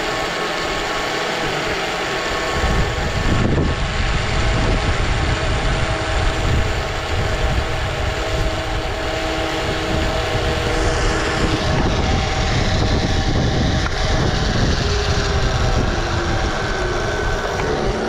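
Motorised zipline rescue robot running along the steel cable, its motor giving a steady whine as it hauls the rider in. A low rumble of wind on the microphone joins about three seconds in.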